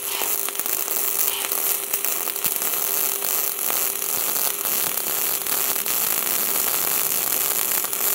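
Two MIG welding arcs crackling at once: a Smart Mix 232 running gasless flux-core wire at about 80 A and another running gas-shielded ER70S-6 wire at about 110 A, with a faint steady hum beneath. The gasless arc is strong, set too hot for this thickness of plate.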